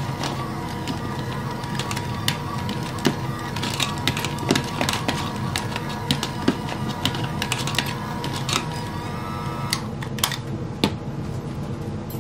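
Electric hand mixer running, its beaters shredding cooked chicken in a bowl with a steady motor hum and many irregular clicks and knocks. The motor stops about ten seconds in, followed by a couple of knocks as it is handled.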